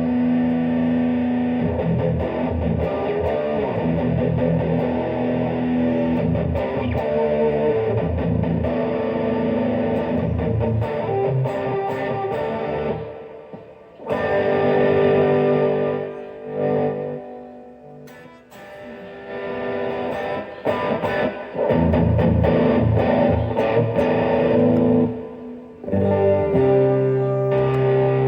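Electric guitar played through a Boss Dual Overdrive pedal, sounding overdriven and distorted as chords ring out. The playing lets off twice for a moment about halfway through, then picks up again.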